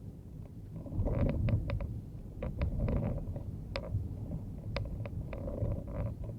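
A car driving, heard as a steady low rumble of engine and road noise. Irregular sharp ticks and clicks sound over it, several a second in places.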